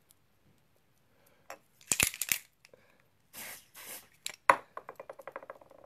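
Handling clicks and rustles, then two short hisses of a spray foundation bottle being sprayed in quick succession, most likely onto a make-up brush. A sharp click follows, then a fast, even run of ticks.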